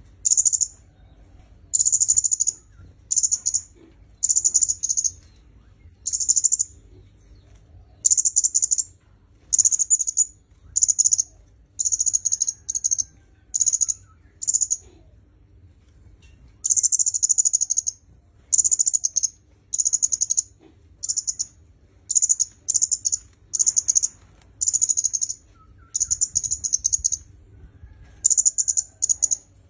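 Caged kemade kepala merah (red-headed kemade) songbird singing: loud, very high-pitched bursts of rapid chirping, each about half a second to a second long, repeated over and over with short pauses between.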